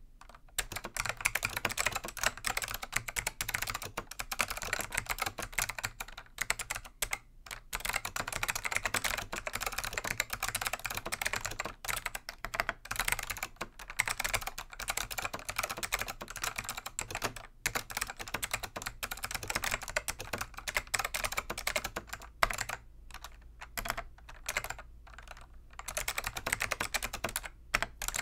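Fast touch typing on a Dell AT101 keyboard with click-modded Alps SKCM Black switches: a dense run of sharp key clicks broken by a few brief pauses.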